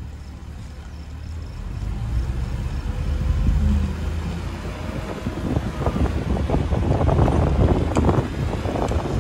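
Car driving along a gravel road: a low engine and road rumble that grows louder, with wind gusting on the microphone and crackling over the second half.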